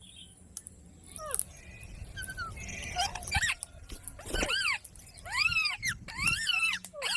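Green parrot, a pet ringneck-type parakeet, giving a series of harsh arching squawks that grow louder in the second half.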